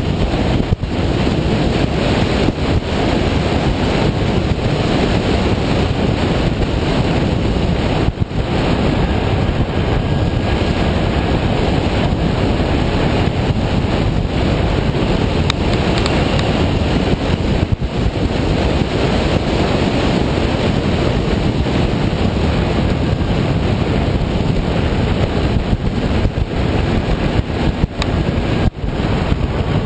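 Wind rushing over the microphone of a moving motorcycle at road speed, a loud steady rush with a few brief dips, with the ride's engine and road noise blended underneath.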